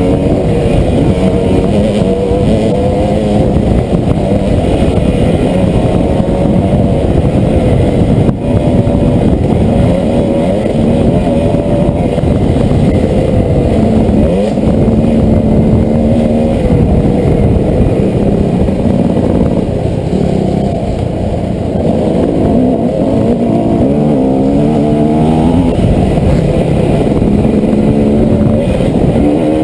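Dirt bike engine under way, its revs rising and falling again and again as the throttle opens and closes. There is one sharp knock about eight seconds in.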